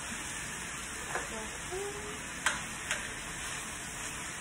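Mixed vegetables and corn sizzling steadily in a skillet. A spoon stirring them clicks against the pan twice, about two and a half seconds in.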